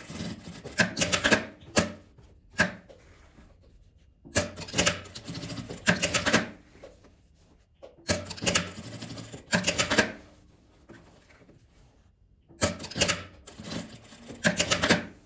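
Industrial straight-stitch sewing machine stitching along the edge of bias binding, running in several short runs of rapid needle strokes, each about two seconds long, with brief pauses between.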